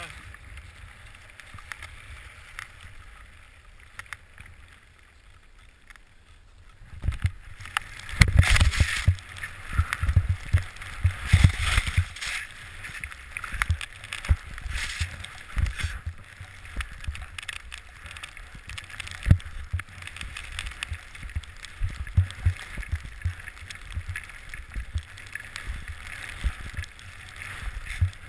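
Skiing through powder snow: skis hissing through the snow with wind rushing over the camera microphone and irregular low thumps. Quiet for about the first seven seconds, then much louder once the run gets going.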